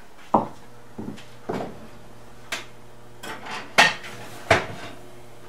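A baking container of chicken pot pie being handled at a wall oven: about eight separate sharp knocks and clinks of dish against oven, the loudest two near the end, over a faint steady hum.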